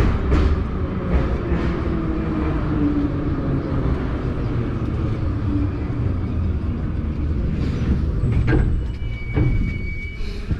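Ezh3 metro car standing at a station: a steady low rumble and hum from the car's onboard equipment. There are two sharp knocks after about eight and nine seconds, and a short high-pitched tone near the end.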